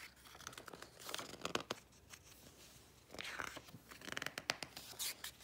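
Pages of a paperback picture book being turned by hand: a few soft paper rustles and flicks, about a second in and again around three and four seconds in.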